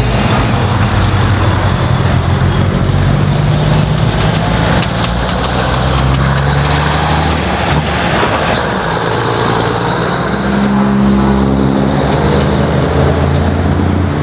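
Heavy diesel engine of a Kenworth W900A truck pulling past, loud through its tall exhaust stacks. From about ten seconds in, a second old truck's diesel comes up, its note rising as it accelerates.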